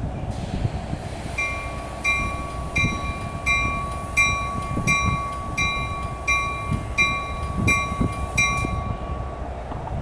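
A bell ringing at a steady pace, about three strikes every two seconds, with a steady ringing tone beneath the strikes. It starts about a second and a half in and stops about a second before the end.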